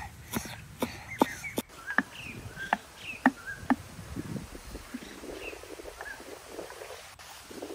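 A cleaver chopping climbing wattle shoots on a wooden board: sharp knocks, two or three a second, that thin out after about four seconds. Small birds chirp in the background.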